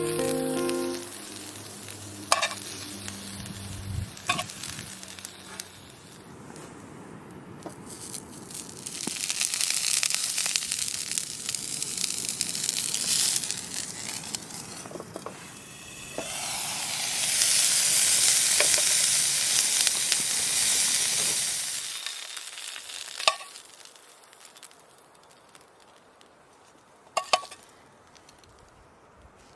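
Meat frying and sizzling in a pan, the sizzle swelling loud twice and dying away about twenty-two seconds in. A few sharp knocks of cooking utensils break in now and then.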